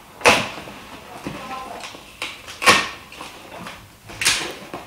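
A cardboard shipping box being torn open by hand, its taped flaps pulled apart. There are three short tearing sounds, with quieter rustling and scraping of cardboard and packing material between them.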